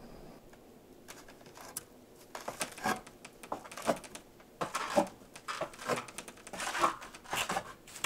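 Boots knocking and scraping on the rungs of a wooden ladder, with clothing rustling, as a man climbs down. The noises start about a second in and come as a quick, irregular series of crunches and knocks.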